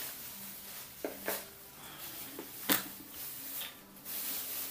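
A few faint, sharp clicks and light knocks over low room hiss, with a faint steady hum underneath.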